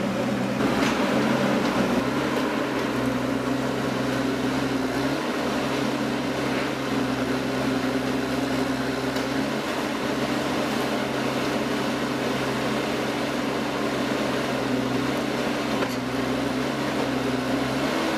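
An engine or motor running steadily, its pitch stepping slightly now and then.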